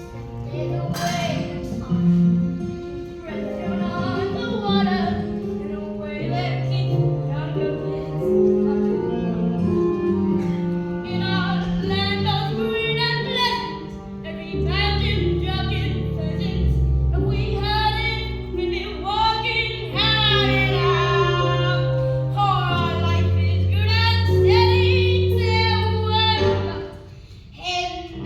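Young voices singing a musical-theatre song with vibrato, over an instrumental accompaniment with held low notes.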